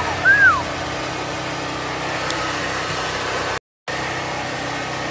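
Steady outdoor background noise with a faint hum, broken by a brief high vocal sound near the start. About three and a half seconds in, the sound cuts to total silence for a split second.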